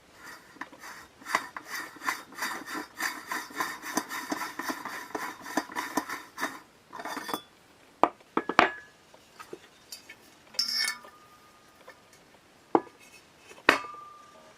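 Small hard parts being handled on a work surface: several seconds of rapid scraping and rattling, then a few separate sharp clinks, the last one ringing briefly like metal.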